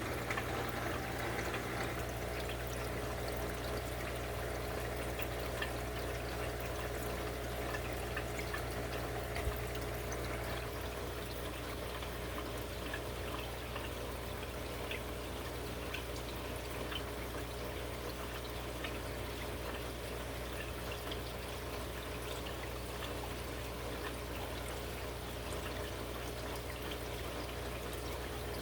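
Aquarium water trickling and splashing steadily, with many small drips and a steady low hum underneath.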